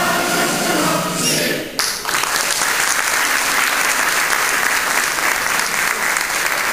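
A group of voices singing breaks off abruptly a little under two seconds in, and an audience in a hall applauds steadily.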